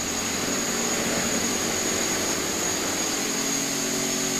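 450-size radio-controlled helicopter hovering: its motor and spinning rotors give a steady high whine over an even buzz.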